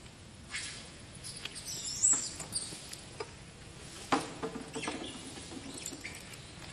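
Baby macaque giving short, high-pitched squeaks and squeals while it is grabbed and held by a young macaque, with a few scuffling clicks. The loudest squeal comes about two seconds in, and another call follows at about four seconds.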